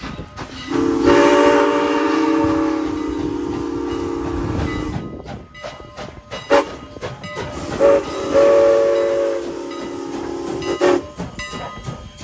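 Train horn sounding a chord of several notes: one long blast, two short blasts, then another long blast, over the low rumble and clatter of the train on the rails.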